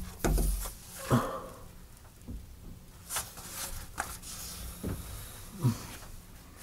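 PVC vent pipe being handled and dry-fitted: a dull thump at the start, then scattered light knocks and scrapes as the plastic pipe bumps the wooden framing and slides into a PVC elbow.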